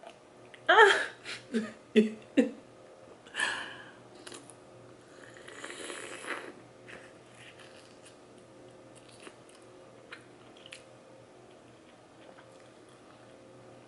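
Eating crab out of seafood gumbo. There are a few short voiced sounds in the first two and a half seconds, then a longer sucking sound as juice is drawn from a piece of crab shell about five to six seconds in, then soft chewing and faint clicks of shell being handled.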